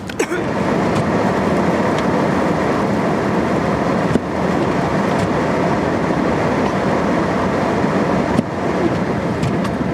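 Car driving on a snow-covered road, its engine and tyre noise heard from inside the cabin as a loud, steady rumble.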